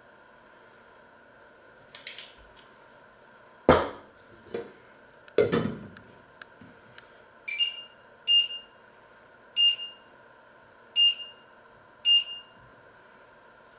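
Metal and glass clanks as a lid is set on a stainless steel saucepan and a spoon knocks against it, then five short beeps from a glass-ceramic hob's touch controls, one for each press of a finger.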